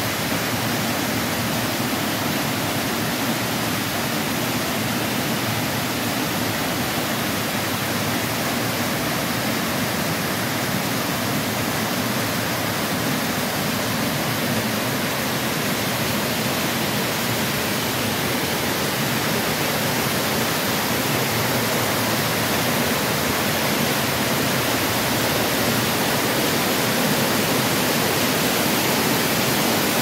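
Small waterfall cascading over rocks and out of a boulder cave, a steady rushing of water that grows a little louder near the end.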